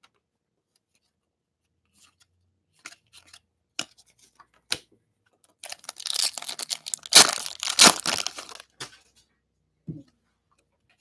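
Crinkling and tearing of a trading-card pack wrapper as cards are handled, loudest over about three seconds in the middle, with a few light clicks before it and a soft thump near the end.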